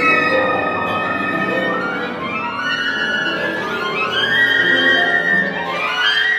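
Contemporary chamber quintet of flute, clarinet, piano, violin and cello playing. Sustained high string tones are overlaid by repeated rising glissando slides, with the violin prominent.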